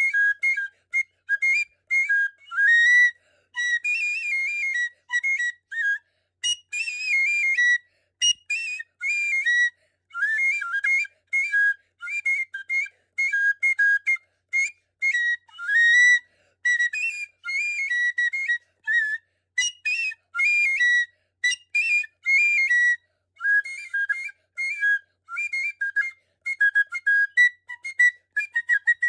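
Small high-pitched flute playing a quick, choppy tune of short notes with brief gaps between them, and no drum or other instrument beneath it.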